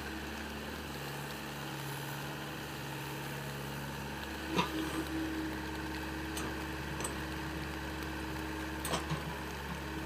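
SDLG mini excavator's diesel engine running steadily while it digs soil, with two sharp knocks: one about halfway through and one near the end.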